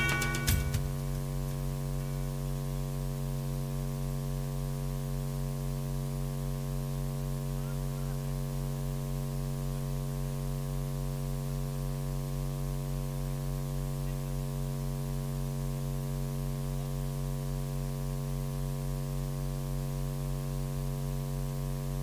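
Steady electrical mains hum and buzz from the commentary sound system: a low, unchanging tone with many evenly spaced overtones. Background music fades out within the first second.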